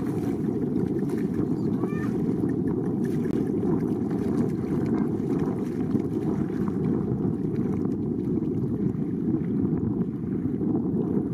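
Steady low rumble of wind on the microphone, with faint splashing of feet wading through shallow water.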